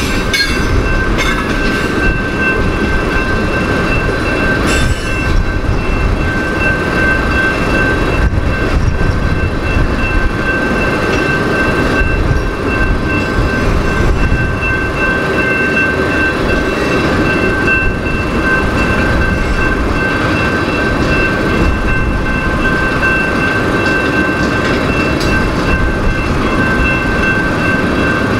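Freight train of tank cars and covered hoppers rolling past at a grade crossing: a steady rumble and clatter of steel wheels on rail, with a few sharp clacks early on. A steady high ringing tone sounds throughout.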